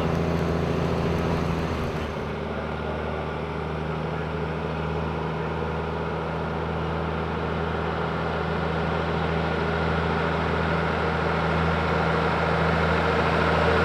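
Engine of an open-air sightseeing tram running steadily while it drives along a paved road, a constant low drone with a rushing road and air noise over it, growing a little louder near the end.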